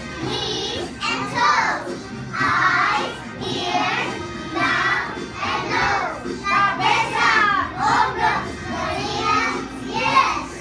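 A group of young children singing an action song together over music accompaniment.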